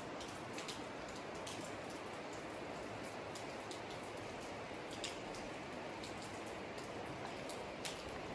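Steady light rain, with scattered drops landing close by as sharp ticks.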